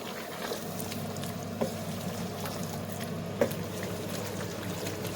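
Thick chicken and chickpea curry being stirred in a pot, a steady wet bubbling sound with a couple of light knocks from the spoon.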